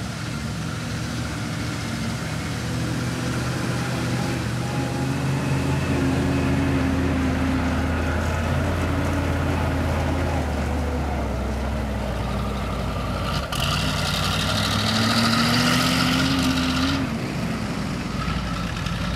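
Replica Sd.Kfz.231 eight-wheeled armoured car's engine running as it drives close past, the engine note growing louder as it nears and rising in pitch as it speeds up. A hiss joins for about three seconds past the middle and cuts off suddenly.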